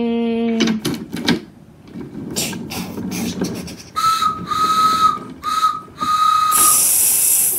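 Homemade train sound effects: a held voiced tone, a few clicks and a noisy chuffing rasp, then four whistle toots at one steady pitch, the last held longest, and a steam-like hiss near the end.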